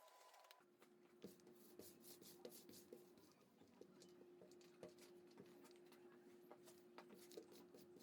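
Near silence: a faint steady hum with scattered light ticks.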